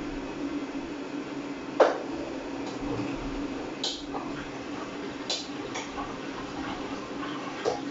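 Sharp ES-KS70K-P top-loading washing machine running mid-cycle: water sloshing in the tub over a steady low hum, with a few short soft splashes or clicks.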